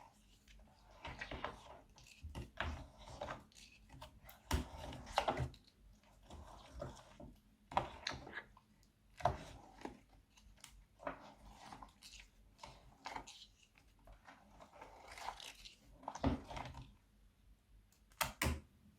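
Crunchy slime being worked by hand, giving irregular crackles and pops.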